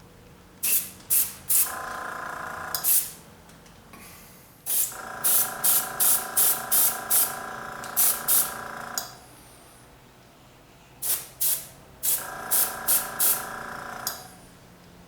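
Airbrush spraying Duracoat firearms finish in short hissing bursts, in three runs of several quick pulls each, as thin coats are built up on a gun slide. A steady humming tone runs under each run of spraying.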